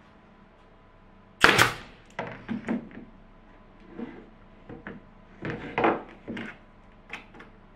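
Wooden workpieces and a wooden spring clamp being handled on a workbench: a sharp clatter about a second and a half in, then a string of lighter knocks and taps of wood on wood.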